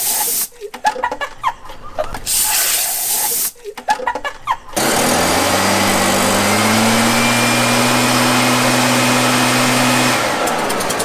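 Compressed air hissing from an air compressor's nozzle in short blasts, with brief voices between them. About five seconds in, a long continuous blast begins, joined by a whirring hum that rises in pitch and then holds steady. It cuts off about ten seconds in and gives way to a fast rattling pulse.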